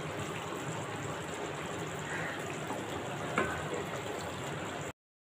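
Fish curry simmering in a kadai, a steady bubbling hiss, with a couple of faint knocks of a wooden spatula as the gravy is stirred. The sound cuts off suddenly near the end.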